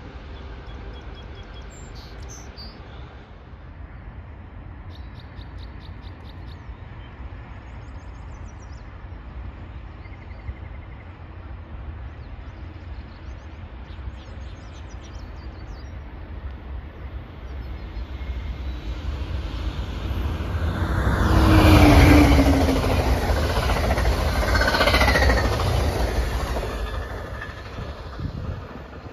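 Passenger train passing close by at speed. A low rumble builds over several seconds into loud wheel-on-rail noise and rail hiss as the cars go past, then fades near the end. Faint bird chirps can be heard over a distant train rumble before the pass.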